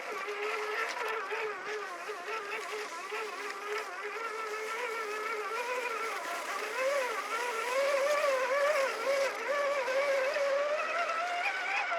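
Electric motor and gearbox of a 1/10 scale RC4WD Toyota Xtracab trail truck whining as it drives. The pitch wavers up and down with the throttle, rising about halfway through and again near the end.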